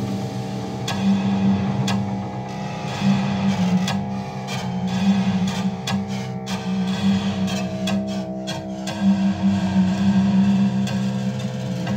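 Eurorack modular synth patch: a Mutable Instruments Plaits voice run through a Beads granular texture synthesizer, making a ghostly steam-train texture. A held low drone with several steady tones above it throbs in uneven, noisy chuffs, and a higher tone joins about halfway through.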